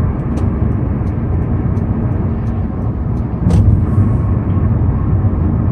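Steady road and wind noise inside a Hyundai Sonata Brilliant's cabin as it cruises at about 105 km/h, a low rumble of tyres and engine. A short sharp tick comes about three and a half seconds in.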